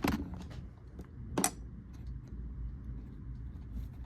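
Sharp clicks and taps of hand tools and parts being handled on the workbench: one at the start, a louder one about a second and a half in, and a few fainter ticks, over a low steady hum.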